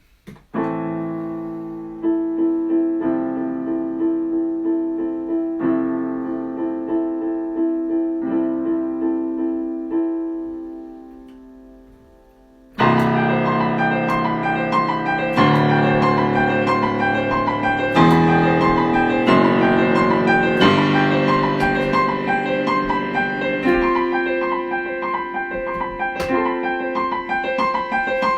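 Improvised solo piano: slow, held chords for about ten seconds that die away almost to nothing, then from about halfway a louder, fuller passage with quickly repeated higher notes over changing chords.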